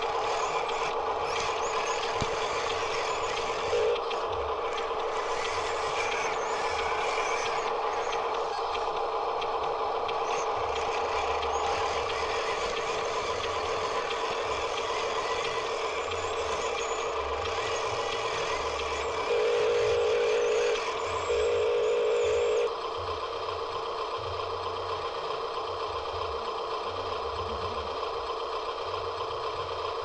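Remote-control dump truck's electronic engine sound effect running steadily, with two louder held horn-like blasts of about a second and a half each, about two-thirds of the way through.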